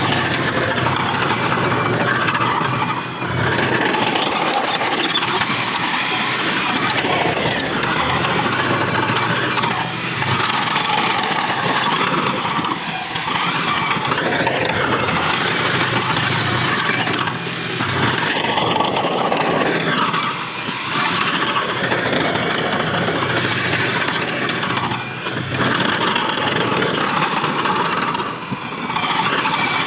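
Bulldozer working earth: its engine and machinery run loud and steady, easing off briefly every few seconds.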